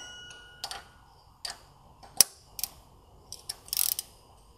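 Small ratchet with a T30 Torx bit clicking as it tightens the screw that holds the cam position sensor in a VW 2.5 five-cylinder's cylinder head. The clicks are separate and sharp at uneven intervals, the loudest a little over two seconds in, with a short flurry of metal clinking near four seconds.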